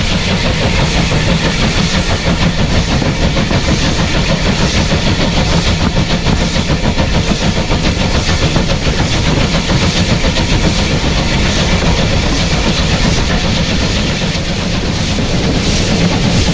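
Steam-hauled train running along the line, heard from an open carriage window just behind Bulleid Battle of Britain class locomotive 257 Squadron: a steady, loud noise of wheels clattering over the rails, with the engine working ahead.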